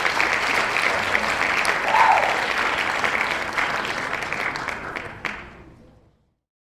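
Crowd applauding, dense clapping with a single voice calling out about two seconds in; the applause fades out over the last second or two into silence.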